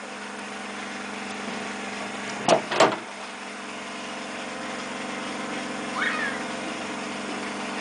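Tailgate of an Isuzu D-Max pickup being opened: two sharp clicks close together about two and a half seconds in as the latch releases, over the steady hum of an idling engine. A short rising squeak comes about six seconds in.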